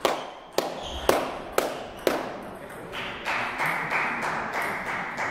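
A table tennis ball bouncing five times, about twice a second, followed by about two seconds of steady noise.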